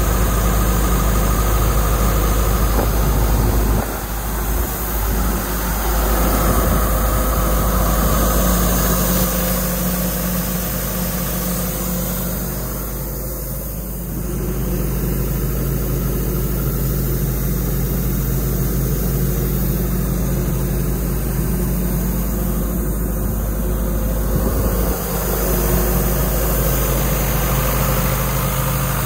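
Diesel engine of an Ingersoll Rand XP375 towable air compressor running steadily at idle.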